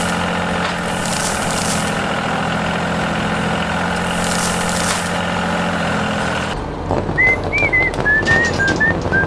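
Heavy truck engine running steadily, with two short hisses of air like an air brake. About two-thirds of the way through it cuts to a cheerful whistled music tune.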